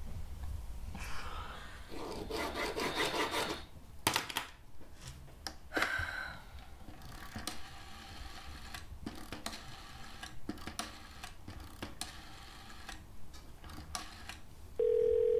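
Orange rotary-dial telephone being handled and dialed: the handset clatters as it is lifted, and the finger wheel is wound round and runs back with quick runs of clicks. Near the end a steady telephone tone starts in the handset.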